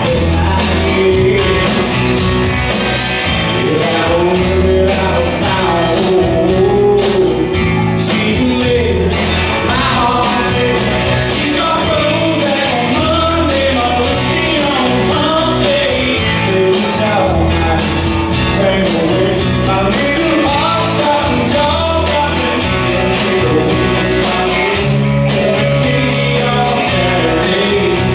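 A live rock band playing a song: a lead singer with electric and acoustic guitars, bass guitar and a drum kit keeping a steady beat.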